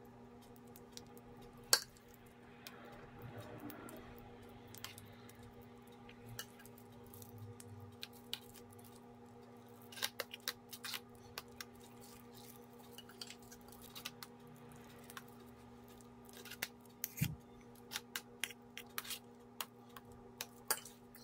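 Metal spoon spreading and smoothing a soft herring mixture in a metal springform pan, with light clicks and scrapes as it touches the pan and the central metal ring. The clicks come more often in the second half, over a steady low hum.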